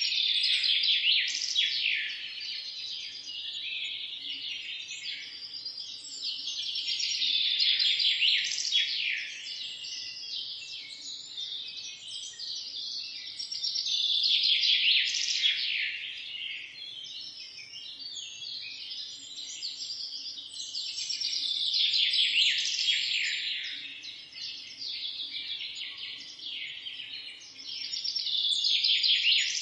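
Many small birds chirping and twittering together in a dense, busy chorus, swelling louder and easing off about every seven seconds.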